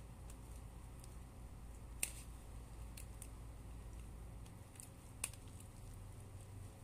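Fingers working through the strands of a human-hair wig, pulling stuck glue out of it: faint rustling and small scattered clicks, with two sharper clicks about two seconds in and again near five seconds.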